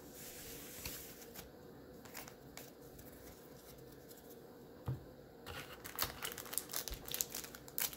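Wrapped trading-card packs crinkling and rustling as a hand pulls one out of the cardboard box, starting a little past halfway. Before that there are only a few faint taps of handling.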